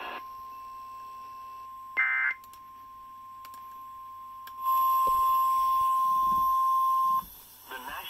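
Emergency Alert System relay playing through laptop speakers: a faint steady tone, a brief burst of digital data tones about two seconds in, then a loud steady NWS 1050 Hz attention tone for about two and a half seconds, the signal that a tornado warning broadcast is about to be read.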